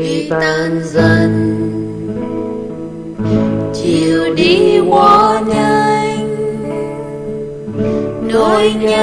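Music led by acoustic guitar, with sustained notes and gliding melodic lines.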